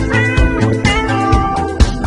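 An edited cat-song: a backing track with a steady drum beat and bass, its melody carried by cat meows edited to the music.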